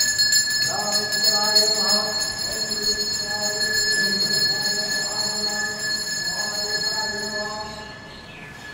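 Temple bell rung rapidly and continuously, a steady bright ringing that fades out near the end, with voices underneath.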